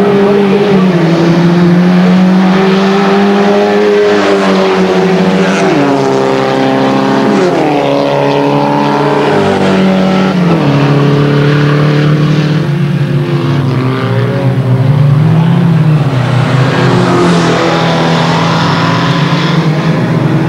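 Rallycross saloon cars racing, engines revving hard. The engine note climbs in pitch and drops back sharply several times, as at gear changes, while the cars pass.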